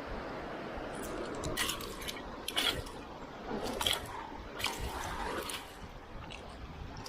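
Seawater splashing and dripping in the shallows, with a run of short, irregular splashes.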